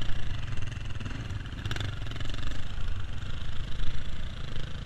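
Dirt bike engine running at low trail speed, its loudness rising and falling unevenly with the throttle, heard close up from on the bike. A single sharp knock sounds a little under two seconds in.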